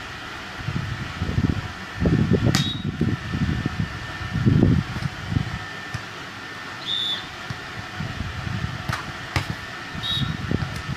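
Wind buffeting the microphone in irregular low gusts, with a few sharp smacks of a volleyball being hit during a beach volleyball rally.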